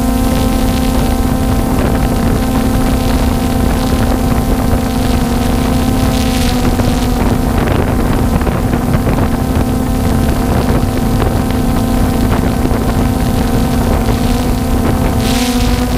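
Small multirotor drone's propellers and motors humming at a steady pitch as it climbs, with wind buffeting the microphone.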